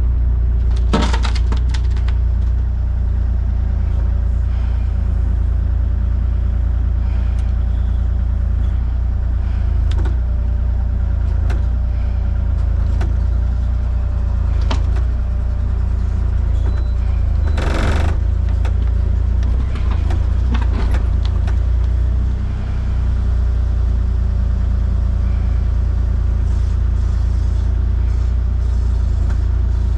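A large engine running steadily at idle, with scattered knocks and clanks over it, the loudest about two-thirds of the way through.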